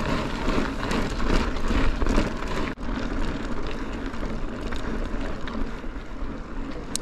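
Mountain bike rolling over a wet, rocky trail: a steady rush of tyre noise and airflow with a low rumble, broken by scattered clicks and knocks of stones and rattling bike parts.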